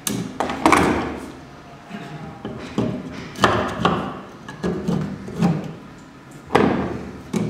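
A mortice lock being knocked into its mortice in the edge of a timber test piece: about eight irregular sharp knocks and thuds on wood.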